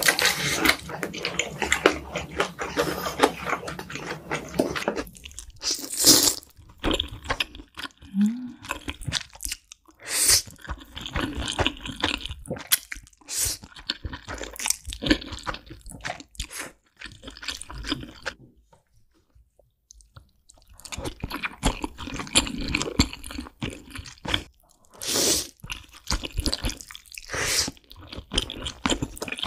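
Close-miked eating sounds of noodles in black bean sauce being slurped and chewed, wet and smacking, by two eaters in turn. There is a brief lull about two-thirds of the way through.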